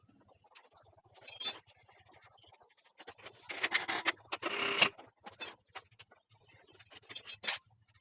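Scraping and rubbing of tools and metal parts during hand work taking apart a scooter's CVT, with scattered clicks and a denser scraping stretch of over a second around the middle.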